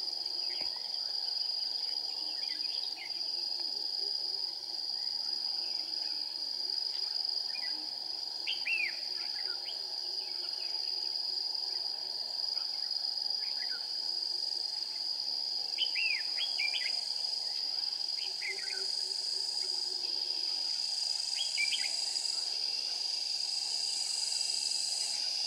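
A steady, high-pitched insect drone, with short chirping song phrases from red-whiskered bulbuls breaking in every few seconds, most often in the middle stretch.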